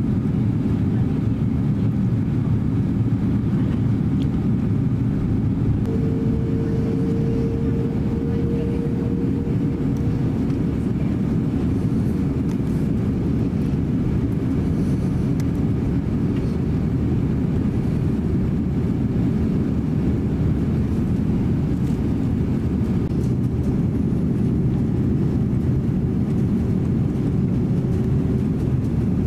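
Steady cabin noise of an Airbus A330-300 on final approach, the low rumble of its Rolls-Royce Trent 700 engines and the airflow over the fuselage. A steady higher whine sounds for about four seconds some six seconds in.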